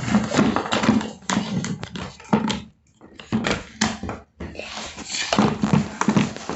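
Hard plastic toy pieces clattering and knocking together as they are handled, a quick irregular run of clicks broken by two short pauses.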